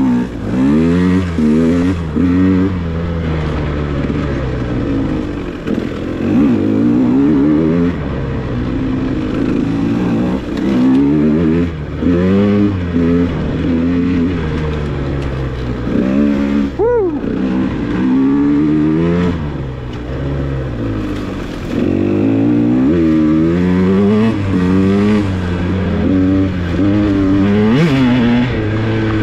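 KTM 150 XC-W two-stroke dirt bike engine being ridden hard off-road, revving up and dropping back over and over with the throttle, with one sharp quick rev about seventeen seconds in.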